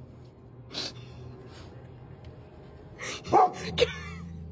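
Golden retriever giving a couple of short breathy puffs, then two louder short woofs about three seconds in, over a low steady hum.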